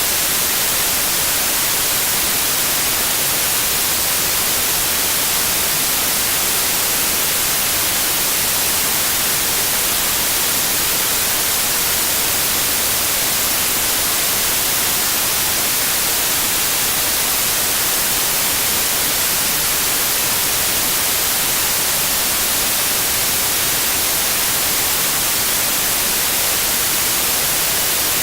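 Steady electronic white noise: an even, unbroken hiss, brightest in the high frequencies.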